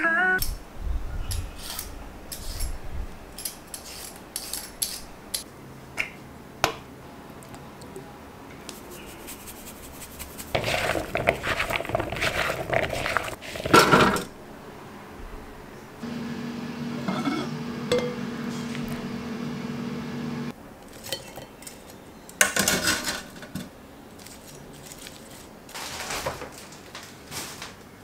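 Kitchen clinks and knocks of dishware and utensils, then a dense rattle of carrot sticks tumbling into an air fryer's wire basket, loudest at the end of the pour. A few seconds later a steady hum plays for about four seconds, the air fryer running, followed by two short bursts of clatter.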